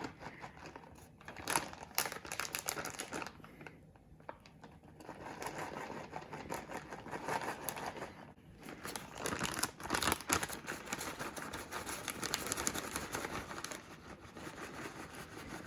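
Irregular crinkling and rustling of plastic packaging with quick small clicks, as shredded cheese is handled and added.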